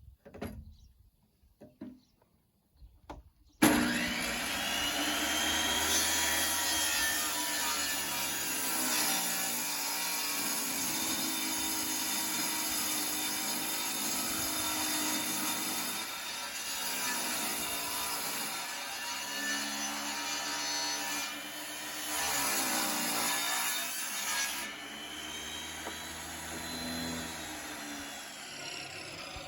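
Table saw switched on after a few faint handling clicks, ripping a pallet board along its fence for about twenty seconds. Near the end it is switched off and its motor whine falls as the blade winds down.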